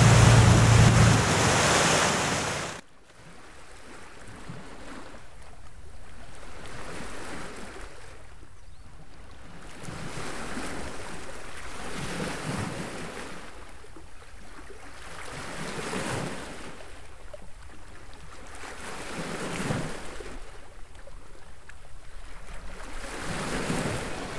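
Loud rush of churning water and low engine rumble from a moving boat's stern wake, cutting off suddenly about three seconds in. Then softer wind on the microphone and water noise, swelling and fading every few seconds.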